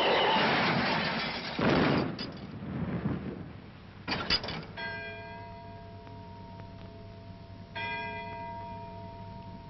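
A large bell tolling, struck twice about three seconds apart, each stroke ringing on and fading slowly. Before the first stroke there is a loud rushing noise that ends in a sharp knock.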